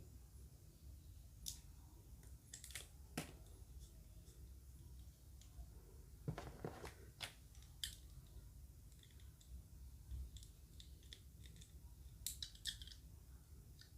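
Faint scattered clicks and crinkles of small plastic toy parts and packaging being handled, with a denser rustle about six and a half seconds in, over a low steady hum.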